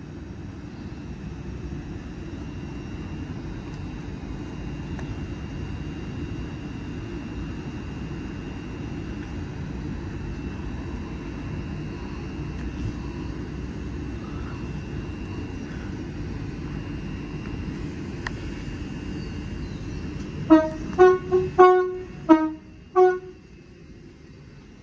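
A loud vehicle horn giving about six short honks in quick succession near the end, over a steady low rumble.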